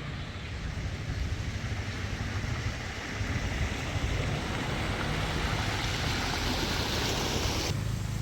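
Heavy rain falling: a steady hiss with a low rumble underneath, the hiss thinning a little near the end.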